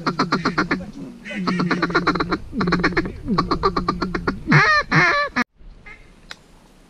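Hand-blown duck call worked in quick chattering strings of short quacks, about eight a second, to a flock of ducks. Two longer drawn-out quacks follow near the end, then the sound cuts off suddenly.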